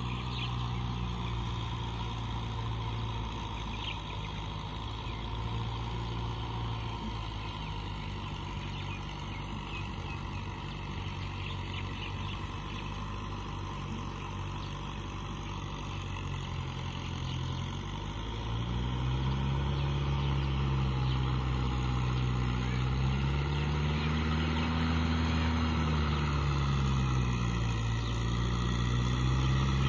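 Kubota tractor's diesel engine running steadily as it pulls a rotavator through a flooded rice paddy. It grows louder about two-thirds of the way in as the tractor comes closer, and its pitch rises and falls a few times near the end.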